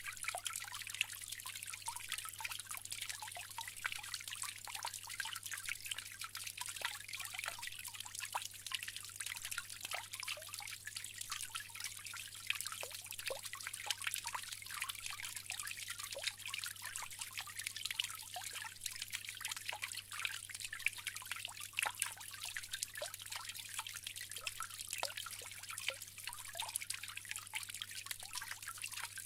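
Bamboo water fountain trickling steadily, water running and splashing in many small drips, with a faint steady low hum underneath.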